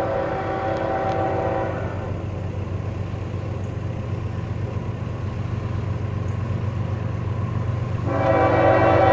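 Diesel locomotive horn on an approaching loaded coal train: one blast ends about two seconds in, and a second, louder blast begins near the end. A steady low rumble runs underneath.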